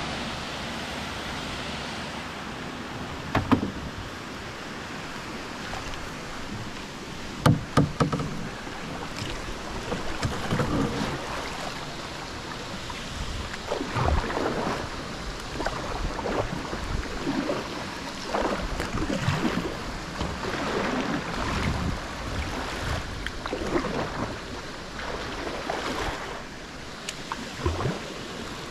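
Kayak paddle strokes dipping and splashing about once a second over a steady rush of water flowing out below a sluice gate. A few sharp knocks come in the first eight seconds.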